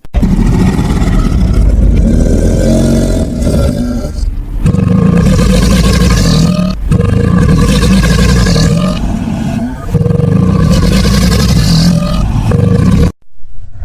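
Alligator bellowing: four long, loud, low-pitched bellows, each two to four seconds long, with brief breaks between them, cut off about a second before the end.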